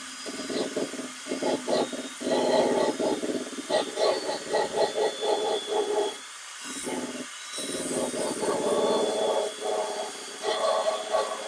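Handheld power tool running against sheet steel, its load pulsing rapidly and dropping off briefly twice around six and seven seconds in.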